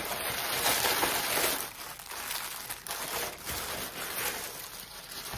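Plastic poly mailer bag crinkling and rustling as it is handled and a hand reaches inside to pull out the contents.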